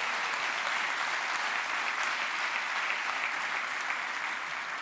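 An audience applauding, a steady patter of many hands clapping that eases off slightly near the end.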